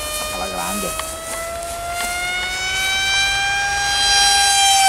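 Radio-controlled model airplane flying overhead, its motor a loud, steady high whine. The pitch rises slowly and starts to drop near the end as the plane passes.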